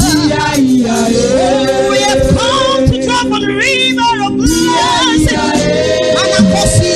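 Gospel choir singing held and sliding notes over instrumental backing, with occasional percussion hits.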